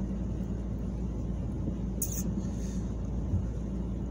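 Steady low road and engine rumble inside a moving car's cabin. There is a short sharp click about two seconds in and a faint knock a little after three seconds.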